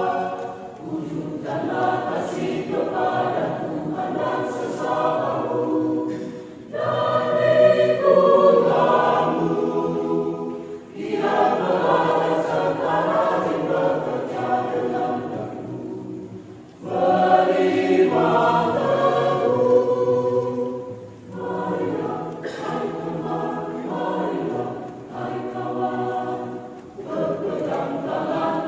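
Mixed choir of women's and men's voices singing together in long phrases of about five seconds, each followed by a brief dip before the next phrase.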